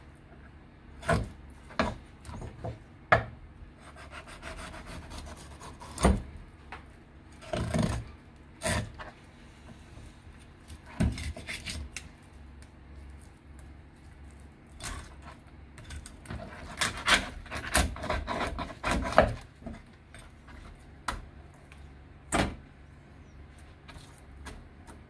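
Fish being filleted by hand with a kitchen knife on a cutting board: scattered sharp knocks between stretches of scraping and rubbing, with a busier run of scraping and knocks about two-thirds of the way through.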